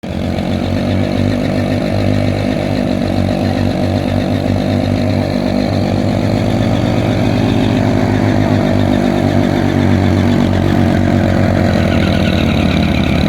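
An engine running steadily at an even speed, with no clear revving.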